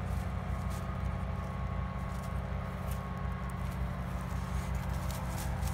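A small engine idling steadily, with faint crackles of dry leaves as a dog steps and sniffs through them.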